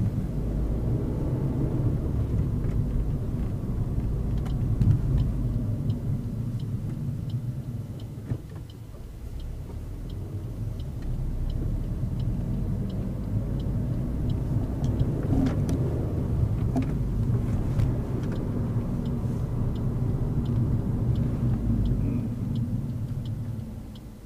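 Suzuki Swift Sport's 1.6-litre naturally aspirated four-cylinder engine running under way, heard from inside the cabin. The engine note drops about eight seconds in, then builds again. A light, evenly spaced ticking, the turn-signal relay, runs through most of it.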